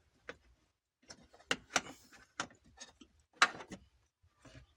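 Irregular hard plastic clicks and knocks: a loose plastic licence-plate lamp housing is being worked out of the hollow tailgate of a Lada Vesta, where it was stuck and rattling against the door's reinforcement and outer metal skin. The loudest knock comes about three and a half seconds in.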